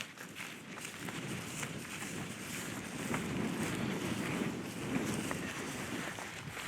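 Wind buffeting the microphone: an uneven low rumble that swells in the middle, with a few faint clicks.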